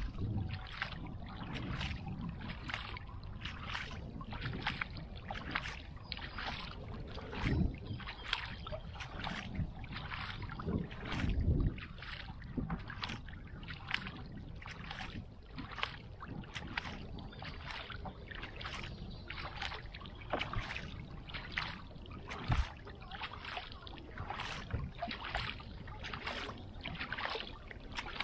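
Kayak paddle strokes: the double-bladed paddle dipping and splashing into the lake in a steady rhythm, about three strokes every two seconds, over a low rumble, with a few dull thumps.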